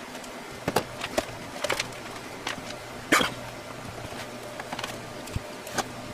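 Scattered clicks and knocks of equipment and tools being handled, the loudest about three seconds in, over a steady low electrical hum.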